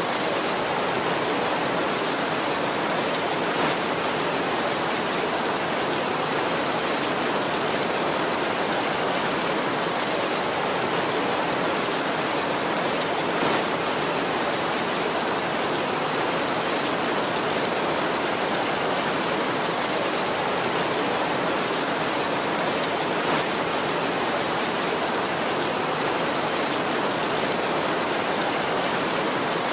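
Steady heavy rain, an even hiss with no thunder, and three faint, brief louder spatters about ten seconds apart.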